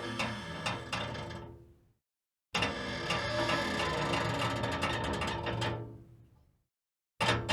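Old oven's metal creaking and ticking in quick series of clicks over a low hum. The takes fade out about two seconds in and again past six seconds, with short dead silences between them. A fresh take starts near the end.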